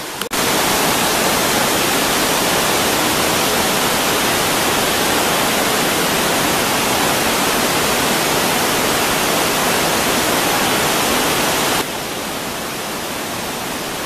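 Steady roar of rushing water from a waterfall, heard as a loud, even hiss. It drops abruptly to a lower level near the end.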